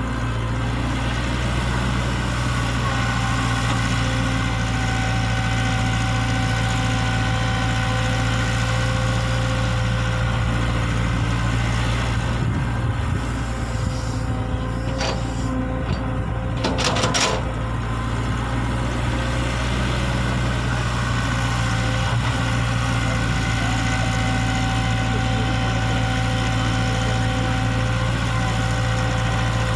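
E120B excavator's diesel engine running steadily, with a couple of brief knocks a little before and just after the middle.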